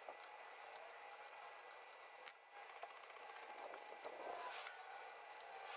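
Faint clicking and scraping of hand tools, with one sharp click a little over two seconds in.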